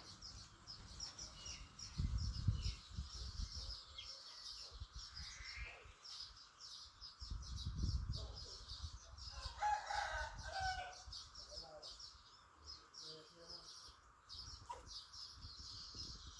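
A rooster crows once about ten seconds in, over a steady background of high chirping. Shorter, lower clucking calls follow soon after, and two stretches of low rumble come near two and eight seconds.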